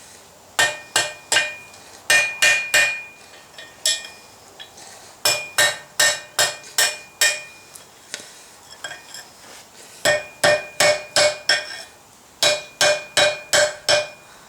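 Hand hammer striking a hot mild steel bar on an anvil. The blows come in about five quick bursts of four to six, with short pauses between, and each strike rings. The smith is rounding out the end of the bar.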